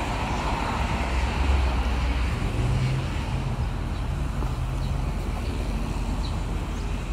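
Road traffic running past: a steady low rumble of cars, with a passing vehicle's engine hum rising and falling in the first half, and a few faint short high chirps later on.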